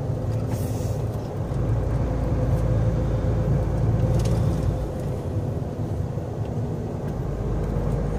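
A large vehicle's engine running steadily with tyre and road rumble, heard from inside the cab while driving. The hum swells slightly a couple of seconds in and eases back about five seconds in.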